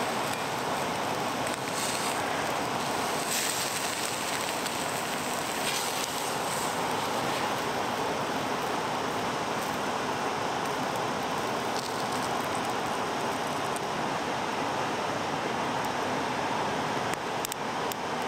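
A river flowing, a steady rushing of water.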